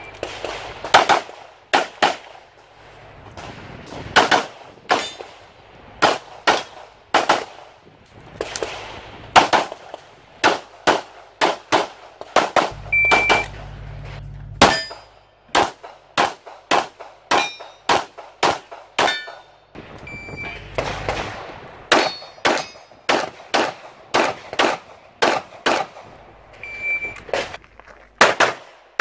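CZ Shadow 2 9 mm pistol fired rapidly in pairs and short strings, dozens of shots in all, with some hits ringing on steel targets.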